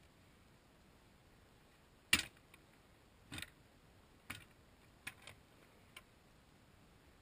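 Shovel digging into soil: about six separate scrapes and thuds of the blade and dirt, the loudest a little over two seconds in, the rest softer and spread over the next four seconds.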